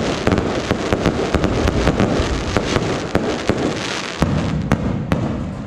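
Fireworks going off in rapid succession: a dense run of sharp cracks over a continuous rumble.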